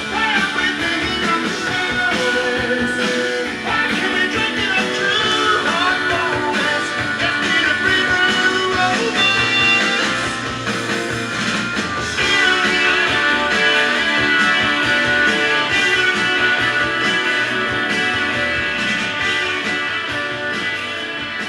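Guitar-based rock music playing from a vinyl record on a Realistic Lab 400 direct-drive turntable.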